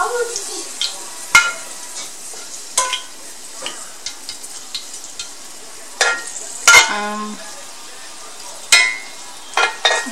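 Sweet basil leaves frying in hot oil in a skillet, a steady sizzle, broken by sharp clicks and clatters of metal tongs and a splatter screen against the pan and plate; the loudest clatter comes about seven seconds in.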